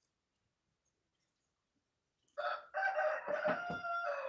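A rooster crowing once, a long call that starts about two seconds in, with a few low knocks under it.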